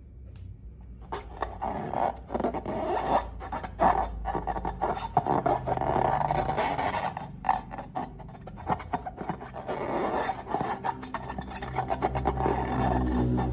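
Slime being squeezed and stretched by hand: a dense run of small sticky crackles and clicks with scraping, starting about a second in.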